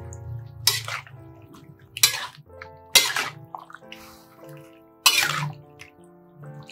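Metal spatula stirring octopus and spice paste in a metal wok: four short, sharp wet strokes, about a second apart at first, then a longer gap before the last, over steady background music.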